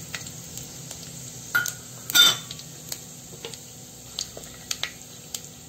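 Whole spices sizzling and crackling in hot rice bran oil in a steel pot, a steady hiss with scattered small pops. A wooden spatula scrapes and knocks against the pot, loudest about two seconds in.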